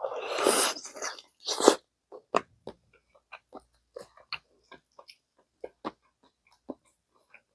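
Close-miked eating of gamjatang, Korean pork-bone soup: a loud, noisy mouthful in the first second and another just after, then chewing with a string of short, wet clicks, a few a second.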